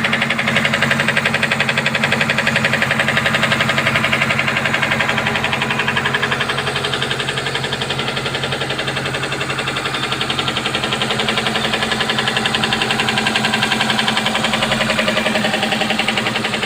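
Subaru Forester's flat-four boxer engine running with a fast, steady knock from inside the engine.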